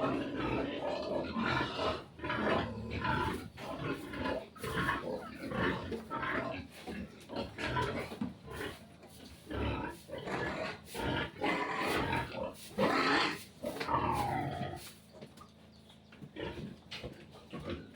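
Pigs grunting and squealing in a rapid run of short calls. A louder squeal falls in pitch about two-thirds of the way through, and the calls quieten near the end.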